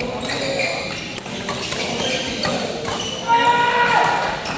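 Indoor badminton play: several sharp hits and thuds ring out in the hall over background voices. A short, higher-pitched sound stands out a little past three seconds in.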